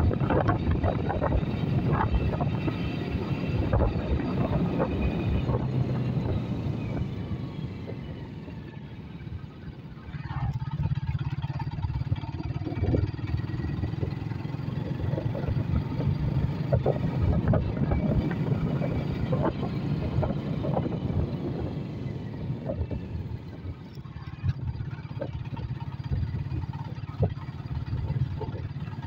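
Honda motorcycle's small single-cylinder engine running while riding over a rough dirt road, with scattered knocks and rattles. The engine note drops off about eight seconds in and picks up again about ten seconds in, then dips briefly once more near the end.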